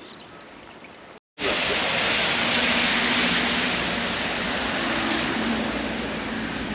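A few faint bird chirps, then after a sudden cut about a second in, steady heavy rain falling.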